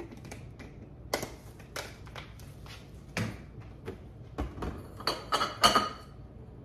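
Soft knocks and rustles of household items being handled, then glass clinking with a brief ring about five seconds in, as a glass canister jar and its glass lid knock together.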